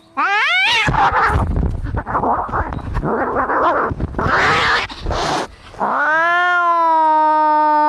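Cats fighting: a short rising yowl, then about five seconds of harsh, noisy snarling and scuffling, then a long, steady drawn-out yowl from about six seconds in.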